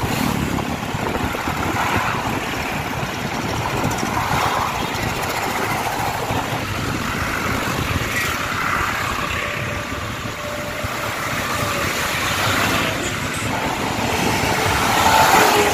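A line of diesel farm tractors driving past on a highway, engines running amid road traffic noise, growing louder near the end as one passes close.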